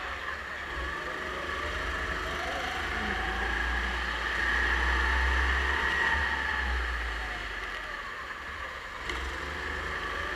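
Go-kart engine running, heard from a camera mounted on the kart, with a steady low rumble on the microphone. The engine note builds as the kart accelerates down a straight, loudest about five seconds in, then eases off near the end as it lifts for the next corner.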